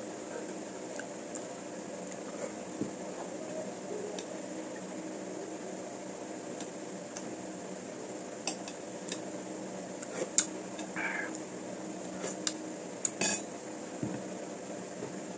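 Spoon and fork clinking against a plate and bowl during a meal: a scatter of short, sharp clinks, most of them in the second half, over a steady background hum.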